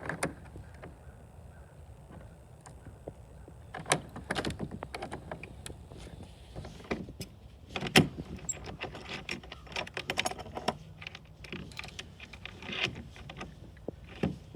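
Clicks, knocks and rattles of a door being unlocked and opened, with one sharp knock about eight seconds in.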